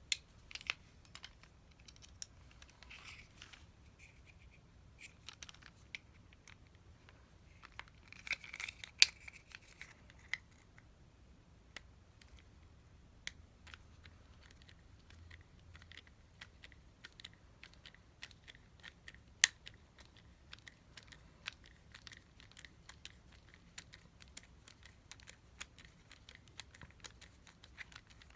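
Small tools and plastic and metal parts being handled at a bench: scattered light clicks and ticks, with two brief stretches of scraping or rustling and two sharper clicks, one about a third of the way through and one about two-thirds.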